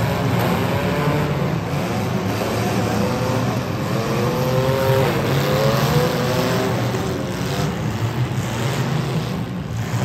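Several compact-car engines revving and running at once, their pitches rising and falling against one another.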